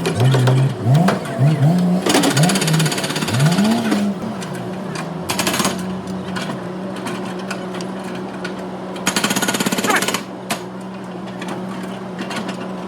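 Power tool running in two loud bursts of rapid rattling, about two seconds and one second long, over a steady low machine hum.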